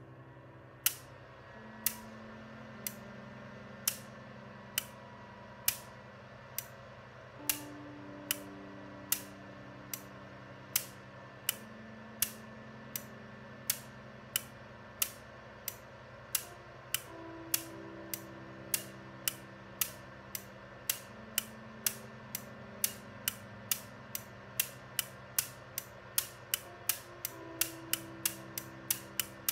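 Banks of electromechanical relays in a home-built relay ALU clacking as they switch together, each clack a group of relays changing state as registers load and operations run. The clacks come about once a second at first and speed up to about three a second near the end, over soft background music.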